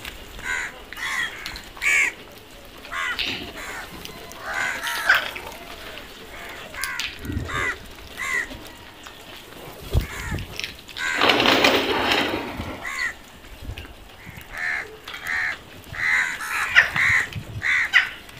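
House crows cawing: many short, harsh caws from several birds, repeated at irregular intervals. A thump comes about ten seconds in, followed by a noisy rush lasting about two seconds.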